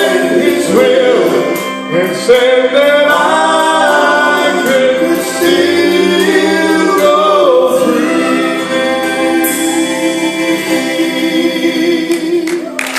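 Male lead singer with a backing gospel group singing the last lines of a gospel song, with long drawn-out notes that stop just before the end.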